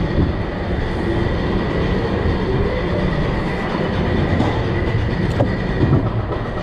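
The Ultimate's roller coaster train running along its track: a steady rolling rattle with a thin, steady high whine over it.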